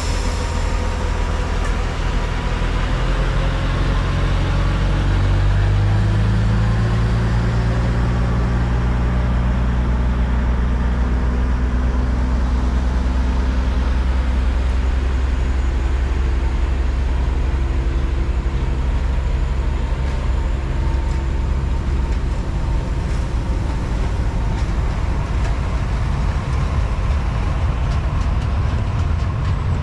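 Diesel train engine running close by, its pitch rising a few seconds in as it powers up, then holding steady; the low rumble changes character near the end.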